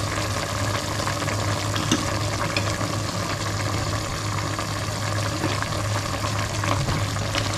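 Pork pieces simmering and bubbling in liquid in a stainless steel pot, with a few light knocks of a wooden spoon stirring near the end. A steady low hum runs underneath.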